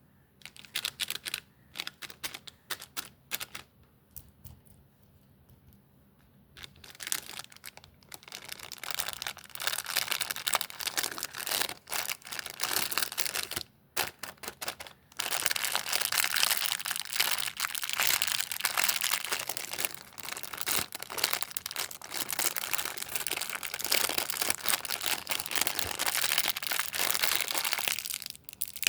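Candy wrappers being crinkled and torn open by hand: irregular crackling bursts, a quiet gap of about three seconds starting about four seconds in, then dense, near-continuous crinkling through the second half.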